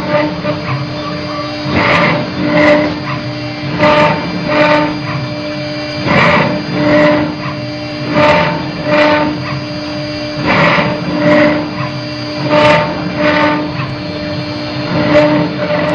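Stone CNC engraving router at work: a steady machine hum, with a pair of louder rasping swells about every two seconds as the cutter makes its repeated passes.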